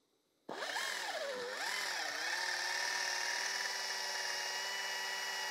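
Air-powered right-angle drill starting about half a second in and drilling into the aluminium cylinder head of an air-cooled Porsche 911 engine; its whine wavers in pitch for the first second or so, then holds steady.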